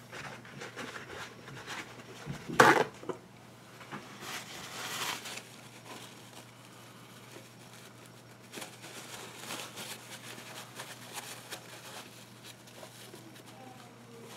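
Paper towel rustling and rubbing against a dripper atomizer and mod as juice is wiped off, with small handling clicks. A short loud burst about two and a half seconds in.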